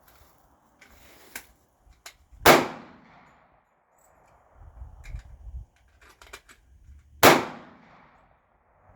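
Two gunshots about five seconds apart, each a sharp crack that rings off briefly, with fainter clicks and knocks of gun handling between them.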